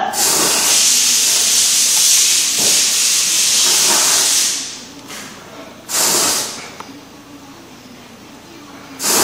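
Compressed air hissing from a handheld pneumatic lock ring tool as its trigger is worked: one long blast of about four and a half seconds, then two short bursts about three seconds apart.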